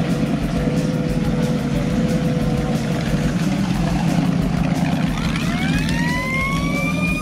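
5.7-litre V8 engine of a Boss Hoss motorcycle rumbling at low revs as the bike rides off slowly. About five seconds in, a siren-like whine starts and rises in pitch, then levels off over the engine.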